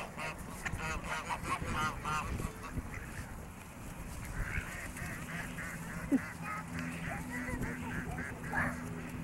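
Flock of domestic geese honking, many short calls overlapping, busiest in the first couple of seconds and again through the second half as the birds crowd in expecting bread.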